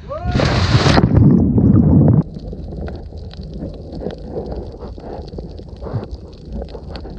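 A person plunging into the sea with a splash, followed by loud churning water and bubbles heard with the microphone underwater. About two seconds in this cuts off suddenly to a quieter, muffled underwater hiss with faint ticks.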